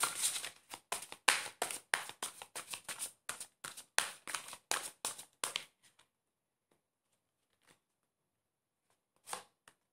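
A deck of oracle cards being shuffled by hand: a quick run of crisp card slaps that stops about six seconds in. A couple of soft card sounds come near the end.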